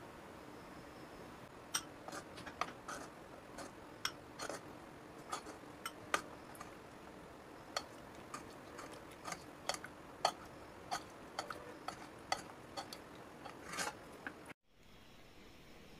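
Light, irregular clinks of a steel spoon against a glass bowl and a metal frying pan as rasgullas and sugar syrup are spooned from pan to bowl. The clinking stops abruptly near the end.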